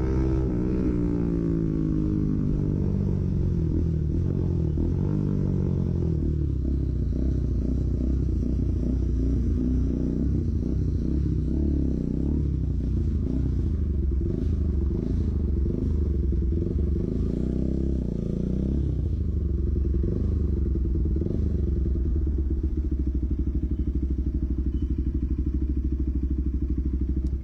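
Bajaj Pulsar NS200's single-cylinder engine through a loud aftermarket SC-Project exhaust on a moving bike. The revs fall away over the first couple of seconds, then rise and fall repeatedly as it rides.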